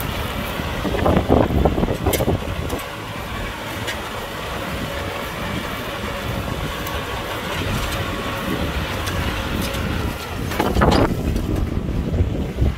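Kubota tractor's diesel engine running steadily while plowing, with two brief louder swells, one about a second in and one near the end.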